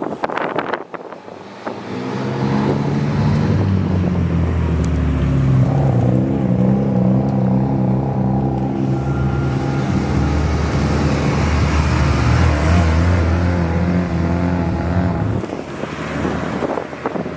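A car engine runs close by at low revs for about thirteen seconds, a steady, low exhaust note that shifts a little in pitch. It comes in about two seconds in and stops near the end, with wind buffeting the microphone around it.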